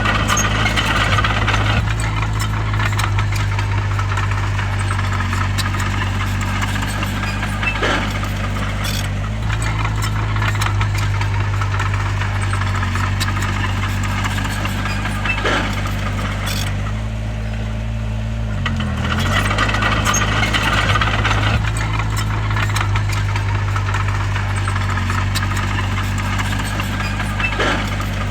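Bulldozer's heavy diesel engine running steadily under work, its pitch dipping briefly twice as the load changes. Higher rattling comes in twice, and there are a few sharp metallic clanks.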